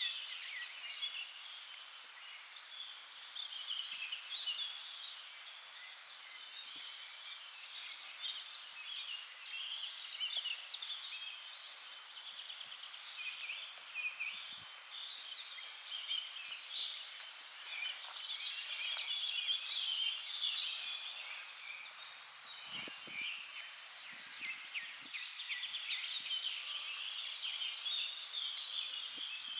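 Dense chorus of small birds chirping and twittering, with a thin, rapidly repeated high note above it and a few soft low knocks about three quarters of the way through.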